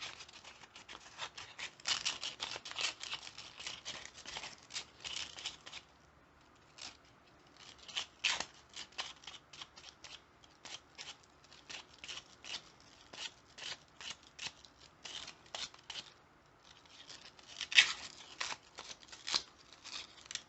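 Sandpaper rubbing over the cut edges of heat-shrink tubing on a lockpick handle, in bursts of quick scratchy strokes with short pauses between them; the loudest scrape comes near the end.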